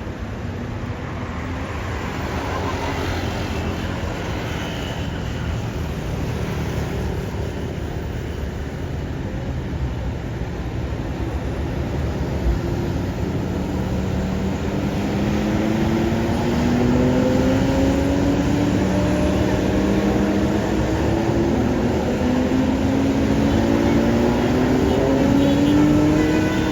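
Steady road traffic noise. About halfway through, a large vehicle's engine accelerates, its pitch climbing, dropping back and climbing again as it changes up through the gears, and it gets louder towards the end.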